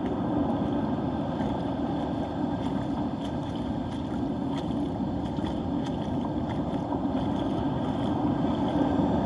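Steady rushing noise of wind and surf on a stormy beach, picked up muffled and tinny through a phone sealed in a plastic waterproof housing, with a few faint ticks of handling.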